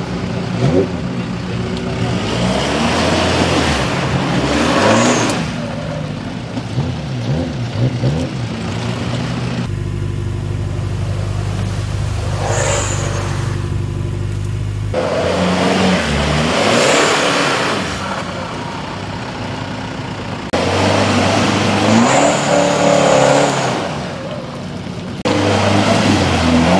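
Off-road Jeep Wrangler's engine revving hard in repeated bursts, each rising in pitch, as it pushes through deep mud under load.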